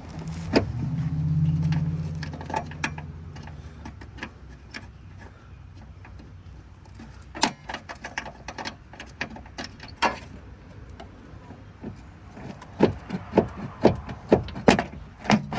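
Scattered metallic clicks, knocks and rattles of a window motor being worked out through the access hole in a Mustang door, coming faster near the end. A low hum swells and fades over the first few seconds.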